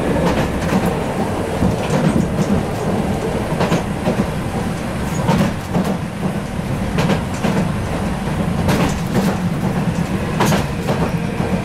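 Hiroshima tram running along the track, heard from inside the driver's cab: a steady low rumble from the running gear, broken by irregular sharp clicks and knocks as the wheels cross rail joints.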